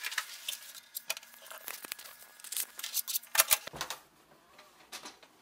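Rustling and handling noise, then a cluster of sharp clicks about three and a half seconds in as a hotel room door's latch and lever handle are worked and the door opens.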